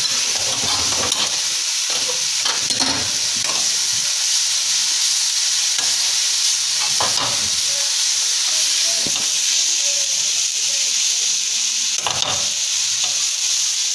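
Shredded chicken, cabbage and capsicum frying in ghee in a karahi, sizzling steadily while being stirred, with irregular scrapes and knocks against the pan.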